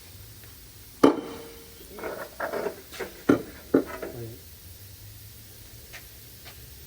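Metal clanks and knocks from exhaust pipes and tools being handled: a sharp clank about a second in that rings briefly, then a run of knocks with two loud ones around three and a half seconds in.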